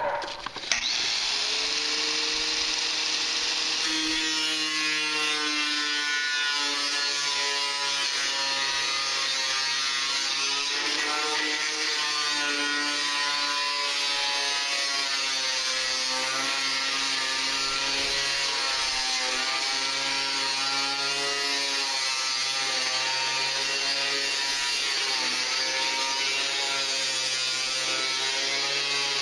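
Makita angle grinder with a thin cut-off disc cutting along a line through corrugated sheet metal. It starts up about a second in, then runs steadily under load: a motor whine whose pitch wavers slightly, over a hiss of disc on metal.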